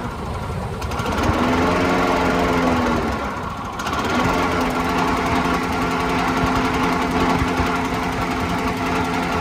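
Small Briggs & Stratton engine on a Sensation commercial push mower running. Its speed sags near the start, climbs back up, sags again a few seconds in, then settles into a steady run.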